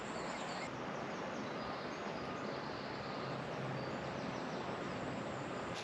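Woodland ambience: a steady background rush with faint, scattered bird chirps.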